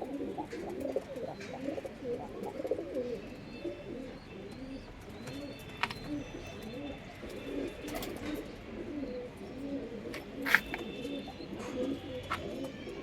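A loft of Punjabi Malwai pigeons cooing, many birds overlapping in a continuous low murmur, with a few higher chirps. Several sharp clicks cut through, the loudest about ten and a half seconds in.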